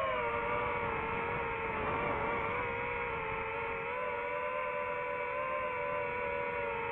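DJI FPV drone's motors and propellers whining steadily in flight, heard from on board. The pitch dips slightly just after the start, then holds level.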